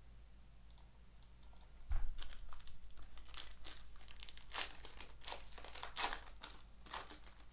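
Trading card pack wrapper being crinkled and torn open by hand, after a low thump about two seconds in.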